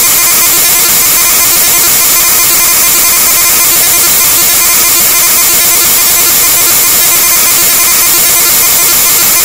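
Loud, harsh glitch/extratone electronic music: an unbroken wall of distorted, buzzing noise with many steady tones running through it, and no change or break.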